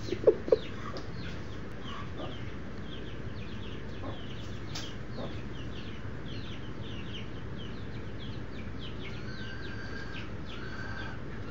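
Two short, loud low clucks from an adult chicken about half a second in, over constant faint, high peeping of baby chicks.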